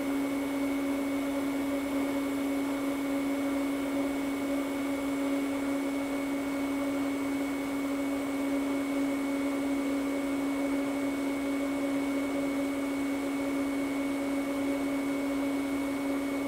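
TIG welding arc on thin stainless steel, burning steadily with an even hiss and a constant hum.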